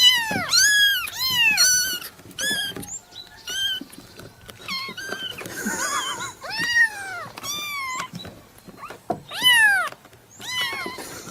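Newborn kitten meowing over and over: thin, high-pitched cries that rise and then fall in pitch, coming in quick succession, some overlapping.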